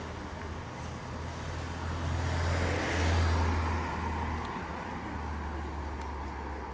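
A Suzuki SUV passing close by on a village street. Its engine and tyre noise swell to a peak about three seconds in, then fade as it pulls away, over a steady low hum of street noise.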